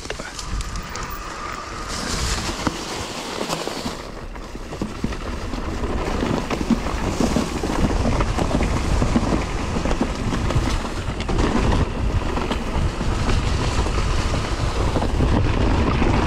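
Electric mountain bike ridden over a rough forest trail, heard from a bike-mounted camera: tyres rumbling with rattles and knocks from the bike, and wind on the microphone. It gets louder about six seconds in.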